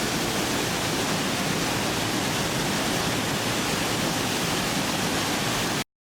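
Aira Force waterfall's rushing water, a steady, even noise that cuts off abruptly shortly before the end.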